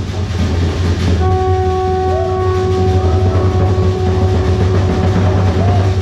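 Fire-dance show accompaniment: a continuous low drum rumble, with a long, steady horn-like note that comes in about a second in and is held for about five seconds.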